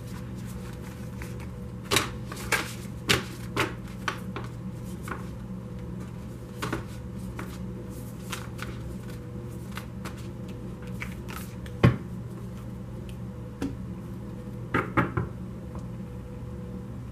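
Large tarot cards handled by hand on a cloth-covered table, with sharp taps as the cards and deck are knocked and set down: a quick run about two to four seconds in, a single loud tap near twelve seconds and a short burst of three near fifteen seconds. A steady low hum runs underneath.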